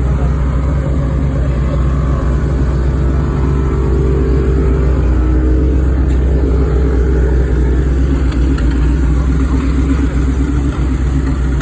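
1969 Chevrolet Impala engine running steadily with an exhaust leak.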